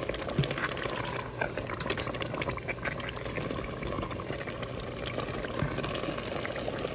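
Chili sauce bubbling in a pan with many small pops, as a wooden spatula stirs through it.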